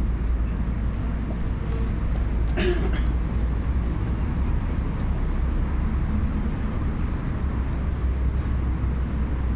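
Outdoor garden ambience picked up through a cheap electret condenser mic sealed inside a balloon as a windscreen: a steady low rumble under a faint even hiss, with one short, sharper sound about two and a half seconds in.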